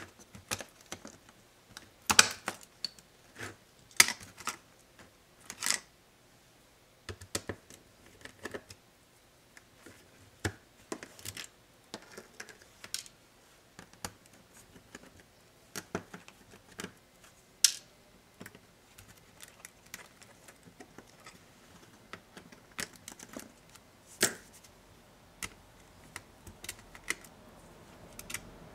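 Hands and a small screwdriver working on an HP 250 G5 laptop's plastic palmrest and touchpad assembly: irregular sharp clicks and taps of plastic and small metal parts, spaced apart with short pauses.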